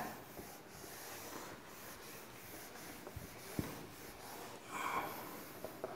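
Whiteboard being wiped with a cloth duster: faint, repeated rubbing strokes across the board, with a couple of light taps.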